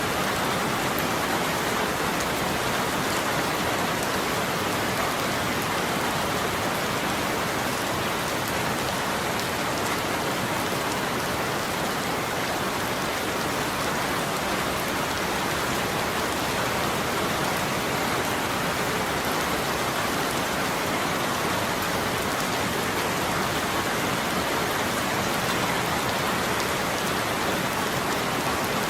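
Steady rain falling on a surface, an even hiss of many drops with no change in intensity.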